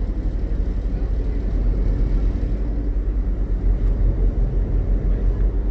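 Tour boat under way, its engine giving a steady low rumble.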